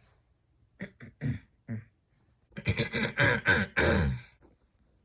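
A person coughing and clearing their throat: four short coughs about a second in, then a longer, harsher run of coughing in the middle.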